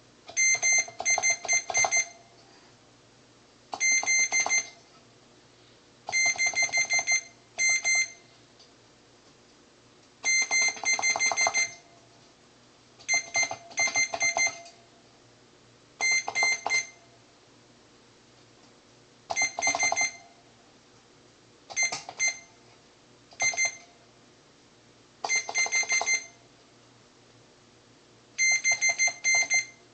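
A digital multimeter's continuity beeper sounds a high tone in about a dozen short groups of broken, stuttering beeps with quiet gaps between. Each group marks a keyboard key's contact closing against the bus bar as the key is pressed during a continuity check of the synthesizer keybed.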